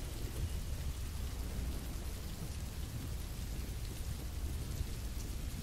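Steady rain ambience: an even hiss of rainfall with a low rumble underneath.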